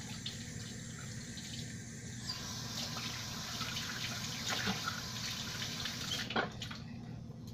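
Kitchen tap running into a sink, the flow coming on stronger about two seconds in and shutting off with a click a little past six seconds, with a few small knocks at the basin.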